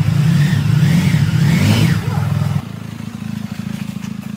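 Sport motorcycle engine running loudly with a rapid, even firing pulse, dropping to a quieter steady run about two and a half seconds in.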